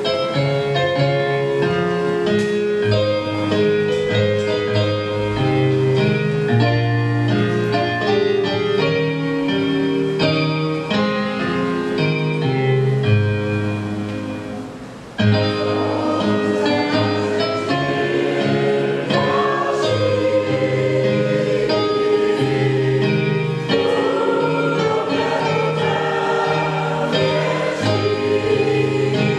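Mixed church choir of men and women singing a sacred song in parts, with keyboard accompaniment. The singing fades at the end of a phrase about halfway through and comes straight back in at full strength.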